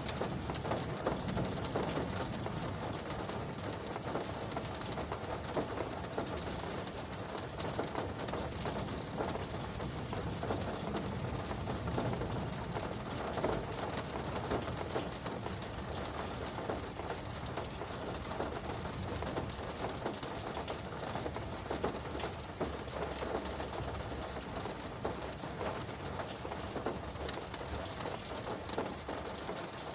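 Rain falling on a car's roof and windows, heard from inside the car: a steady patter of many small drop hits at an even level.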